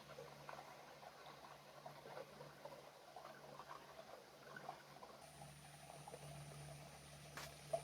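Faint small splashes and trickling of water over a steady low hum, with one sharp click near the end.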